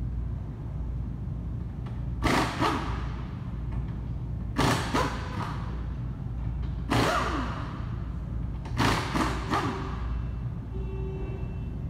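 Impact wrench fired in four short bursts about two seconds apart, each winding down as the trigger is let go, working the 18 mm transmission bolts loose. A steady low hum sits underneath.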